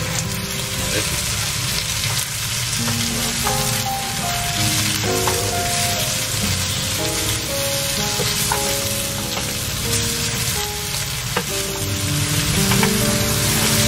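Pork and vegetables sizzling steadily in a frying pan as they are stir-fried and turned with a metal slotted spatula.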